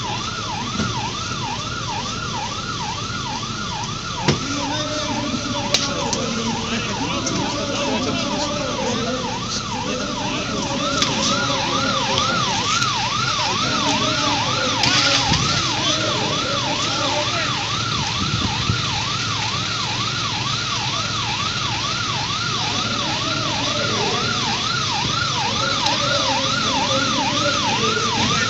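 Fire engine siren yelping steadily, rising and falling about three times a second, over a steady wash of background noise.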